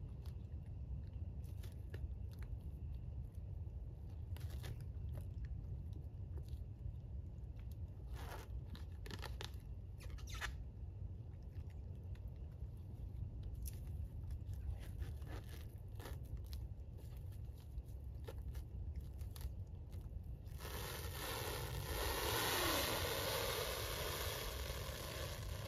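Plastic stretch wrap pulled off its roll and stretched around a pole, a loud crackling screech starting about 21 seconds in and lasting several seconds. Before it, scattered crunches of footsteps and handling on dry leaf litter over a low steady rumble.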